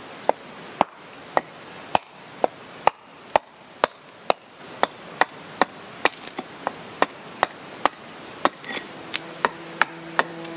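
Hatchet chopping into a black walnut blank on a wooden stump, sharp strikes about two a second, roughing out wood below the handle of a kuksa cup. A held musical tone comes in near the end.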